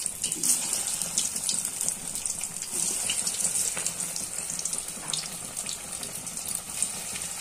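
Breaded paneer cutlets deep-frying in hot oil: a steady, high sizzle scattered with many small crackles and pops.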